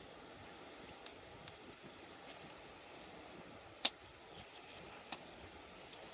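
Wood fire crackling: a steady low hiss with scattered sharp pops, one much louder pop a little before the middle and another about a second later.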